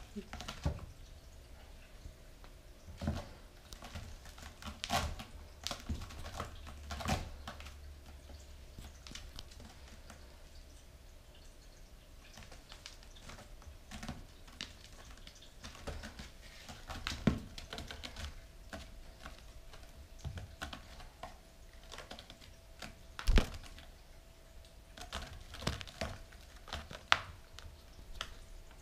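Bengal kitten's claws catching and scratching on the sisal rope of a scratching post as it climbs, an irregular scatter of clicks and scrapes. A sharper knock comes about four-fifths of the way through.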